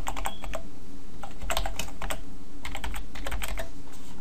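Typing on a computer keyboard: three quick runs of keystrokes, over a steady low hum.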